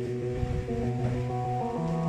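Background music: sustained chords whose notes change about once a second.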